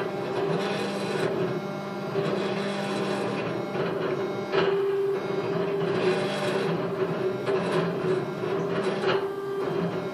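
K40 CO2 laser cutter's stepper motors driving the laser head back and forth, a steady motor whine that stops, starts and changes pitch with each move, over the rushing noise of the exhaust fan.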